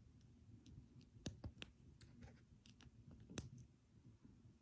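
Faint clicks of plastic Lego Technic pieces being handled and snapped together: a scattered run of sharp clicks, the loudest about three and a half seconds in.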